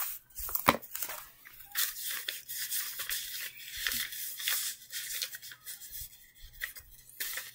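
Irregular rustling and scratching of paper handled close to the microphone, with a few soft knocks, the sharpest about a second in.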